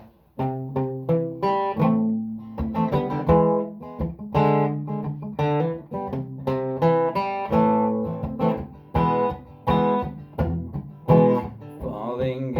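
Acoustic guitar playing the intro of a song, plucking a quick run of chord notes one after another.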